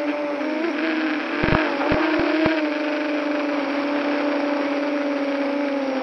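Multirotor drone's electric motors and propellers whining steadily, close to the onboard camera's microphone, the pitch drifting slightly with throttle; a few sharp clicks around two seconds in.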